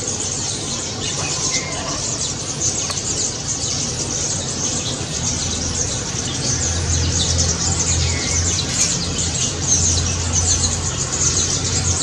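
Rosy starlings chattering and squawking in a dense, unbroken high-pitched chorus. About halfway through a low steady hum joins in underneath.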